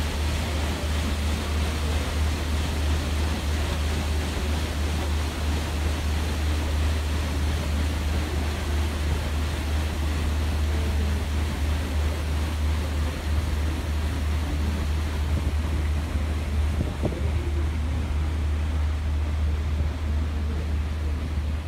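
Steady low rumble and rush of a cruise boat under way: engine drone and water noise along the hull, with wind on the microphone.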